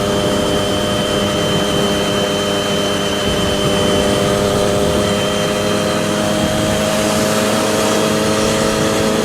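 Triumph Daytona 675R's inline three-cylinder engine running at a steady, even pitch while cruising, over a rush of wind noise.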